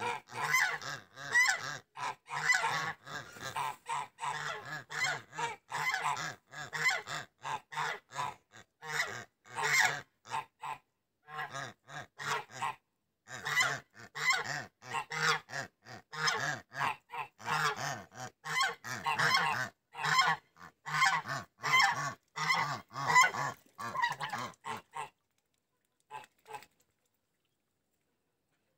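Flock of domestic geese, white Linda and grey Kholmogory geese, honking over and over in short calls. After a brief lull about halfway, the honking stops abruptly a few seconds before the end.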